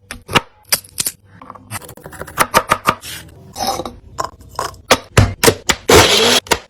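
Kitchen utensils knocking and scraping in quick, irregular strokes, with a short rushing hiss about six seconds in.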